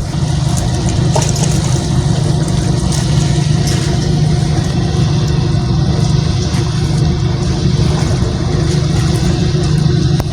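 An engine running steadily at an even speed: a constant low hum that does not rise or fall.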